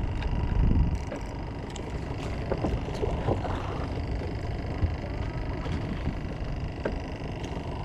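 A motor running steadily, a low rumble with a faint, even whine above it, and a few faint knocks.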